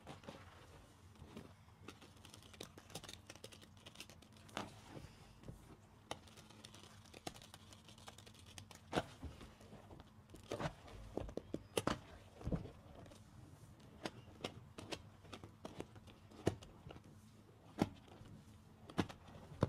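Soapy car sponge being squeezed by hand: a run of irregular wet clicks and pops from the suds, several louder ones in the second half, over a faint steady hum.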